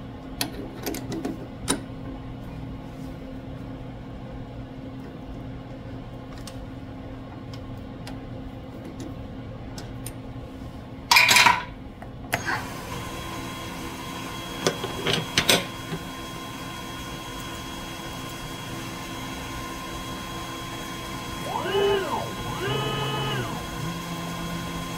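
Small benchtop CNC lathe (Dyna Myte DM3000) setting up a cut on Teflon bar: scattered clicks, then a loud half-second burst of noise about halfway, after which the spindle runs with a steady thin whine. Near the end the axis motors whine, rising and falling in pitch as they move the tool, then hold a low steady hum.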